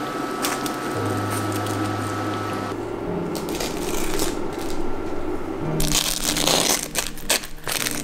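Crisp breadcrumb crust of fried mozzarella sandwiches crunching and crackling as metal tongs grip them and set them on a stainless wire rack, with clicks of the tongs. The crunching is densest about six to eight seconds in.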